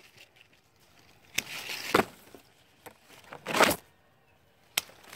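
Hand pruning shears cutting green tea bush branches: several sharp snips of the blades closing, with a longer, louder noisy cut about three and a half seconds in.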